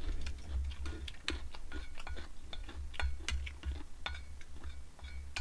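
An eating utensil clicking and scraping against a stainless steel bowl while food is scooped from it: irregular light clinks, a few a second, over a low steady hum.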